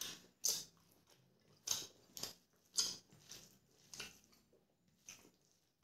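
Close-up mouth sounds of a person eating rice and chicken curry by hand: a string of short, wet chewing and smacking clicks at an irregular pace.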